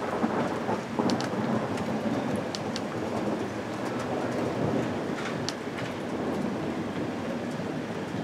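Heavy rain falling during a thunderstorm, with a long roll of thunder that swells in at the start and rumbles on. Scattered sharp ticks of drops land close by.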